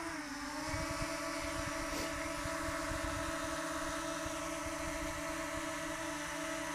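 DJI Mini 2 drone hovering just after take-off, its spinning propellers giving a steady whining hum. The pitch settles slightly lower in the first half second, then holds even.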